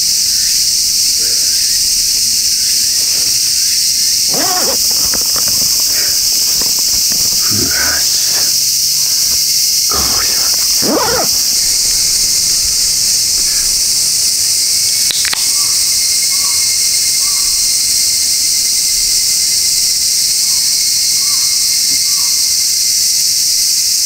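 Dense, steady chorus of cicadas in a midsummer forest, high-pitched and unbroken, with a few brief handling sounds and a single sharp click about fifteen seconds in.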